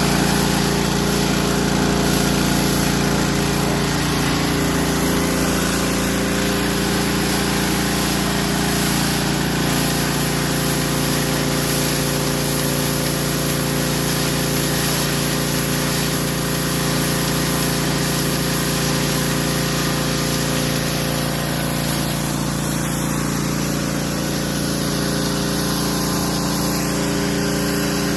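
Engine-driven pressure washer running steadily, its engine hum under the continuous hiss of the high-pressure water spray.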